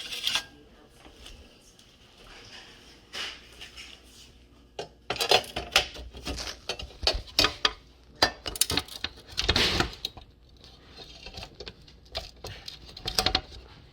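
Sheet-metal oven door parts clicking, clinking and scraping as they are handled and fitted together, with the top piece being slid into place. Quiet at first, then a busy run of sharp knocks and clicks from about a third of the way in until near the end.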